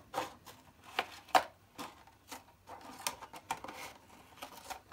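Scissors snipping through the thin plastic of a 4-pint milk bottle while the edge is trimmed: a run of irregular sharp snips, the loudest about a second and a half in.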